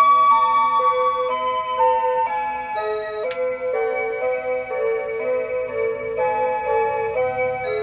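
Seiko Wave Symphony RE575B musical wall clock playing one of its electronic hourly melodies: a run of sustained synthesized notes changing every fraction of a second. There is one sharp click about three seconds in.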